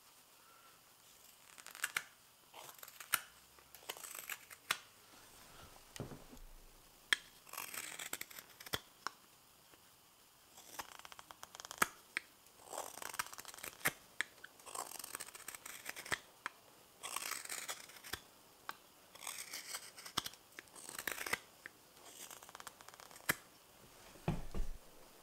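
Hans Karlsson spoon knife (a hook knife) cutting shavings from the bowl of a fresh maple spoon: a series of short rasping cuts, about one a second, with small sharp clicks between them. A low thump near the end.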